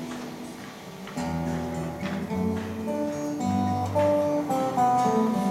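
Steel-string acoustic guitar played alone, with single picked notes ringing over low bass notes. The playing is soft at first and grows fuller about a second in.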